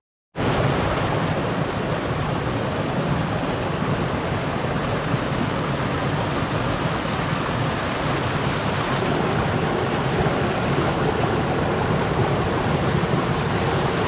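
Rushing water of a small rocky creek tumbling over boulders and cascades, a steady loud rush that starts abruptly just after the beginning.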